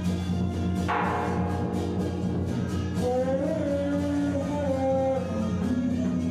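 Music: a plucked string instrument strikes a ringing note about a second in over a steady low accompaniment, and a voice begins singing a long wavering line about three seconds in.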